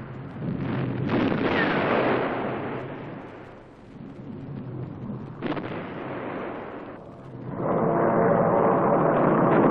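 War sound effects laid over archive film: a rumbling blast about a second in that dies away, a sharp crack about five and a half seconds in, then from about three-quarters of the way through the loud steady drone of several aircraft engines.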